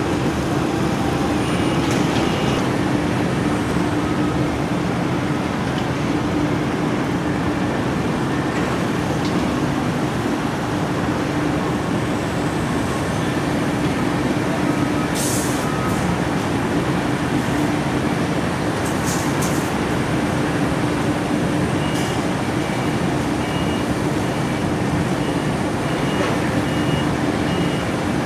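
Steady diesel engine drone of a mobile crane lifting a loaded skip container, with a low hum. Short high warning beeps repeat near the end.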